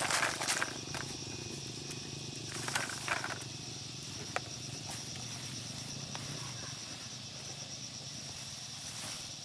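Outdoor ambience: a steady high insect drone over a low steady hum, with a few short knocks and rustles in the first half.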